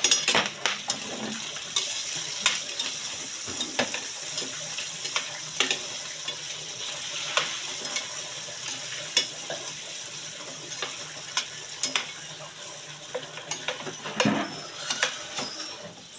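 Meat sizzling in a frying pan while it is stirred with a metal spatula: a steady hiss of frying, broken by irregular scrapes and clinks of metal on the pan.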